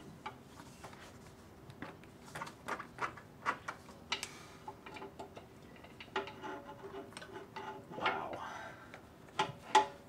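Irregular light clicks and metallic clinks of hand tools being picked up and handled, as a pry bar is fetched, over a faint steady hum.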